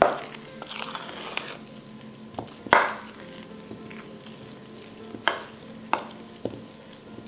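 A thick rye-flour sourdough mix being stirred by hand in a stainless steel bowl, with about four sharp clicks against the bowl. The loudest click comes about three seconds in.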